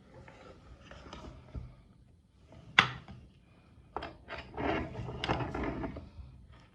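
Handling knocks and rubbing: a single sharp knock about three seconds in, then a run of knocks and scraping over the next two seconds.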